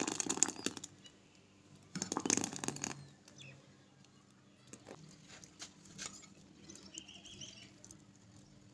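Quiet kitchen handling sounds: a brief rustling swish about two seconds in, then faint scattered light ticks and taps.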